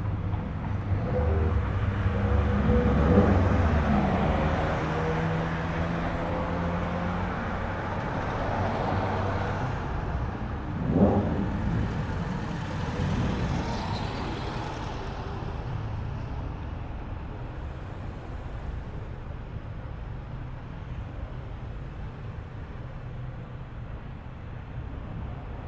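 Cars rolling by at low speed with their engines running. There are two brief engine revs, about three and about eleven seconds in, and then the engine sound fades to a low steady rumble.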